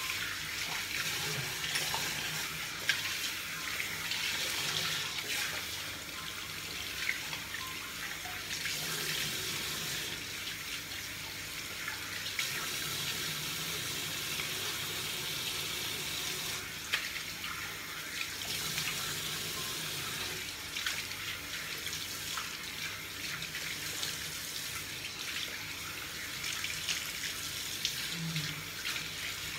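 Tap water running steadily into a bathroom sink, with small splashes as a face is washed and rinsed.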